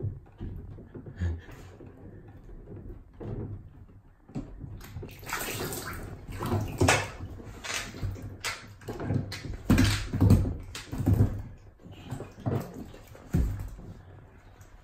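An otter splashing and sloshing about in a plastic tub of water: a run of irregular splashes, busiest and loudest in the middle, quieter near the start and end.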